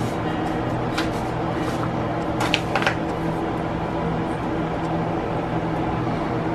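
Hands pressing fish fillets into dry fish-fry breading in an aluminium foil pan, with a few sharp crinkles of the foil about a second in and again around two and a half seconds in. Under it runs a steady low hum.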